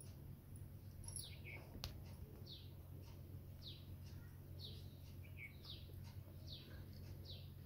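A bird chirping over and over, each call a short falling chirp, about one a second, over a steady low hum. A single sharp click comes about two seconds in.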